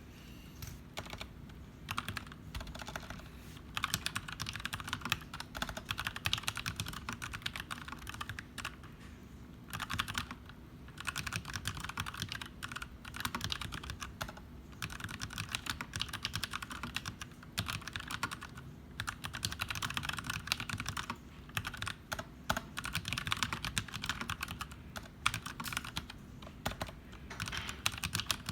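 Typing on an Archon AK89 mechanical keyboard with stock Kailh Box Brown tactile switches: rapid key clacks in runs of a few seconds, broken by short pauses.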